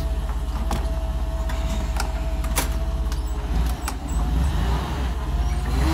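Forklift engine running with a steady low pulsing, a thin steady whine over the first three seconds, and a few sharp clicks and knocks; the engine gets fuller and a little louder about three and a half seconds in.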